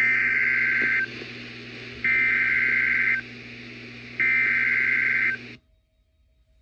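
Emergency Alert System SAME header: three bursts of fast two-tone data warble, each about a second long with about a second between them, carrying the coded Child Abduction Emergency alert. A steady low hum and hiss run underneath, and everything cuts off suddenly about five and a half seconds in.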